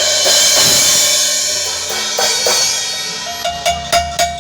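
Drum kit played through the PA in a sound check: a cymbal crash rings out and fades over the first couple of seconds, then a few sharp drum hits near the end, with a held tone coming in under them.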